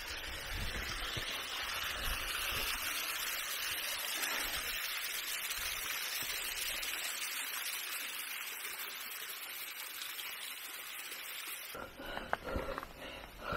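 Small mountain waterfall splashing down a rock face in a steady rush. The rush drops away near the end, when a few sharp steps on the stony trail stand out.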